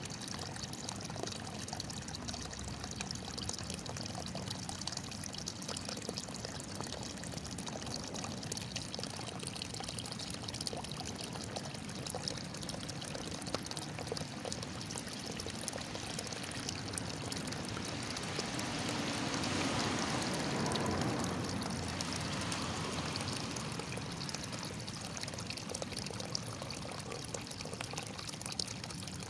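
Water running and splashing steadily, growing louder for a few seconds about two-thirds of the way through.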